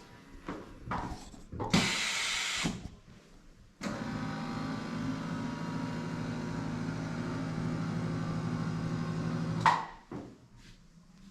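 Electric motor of a chiropractic table starting abruptly and running steadily with a low hum for about six seconds, then stopping, as it drives a low-back stretch. A short hiss comes about two seconds in.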